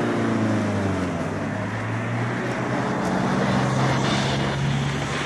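Diesel engine of a wheel loader running. Its revs drop slightly in the first second and then hold steady.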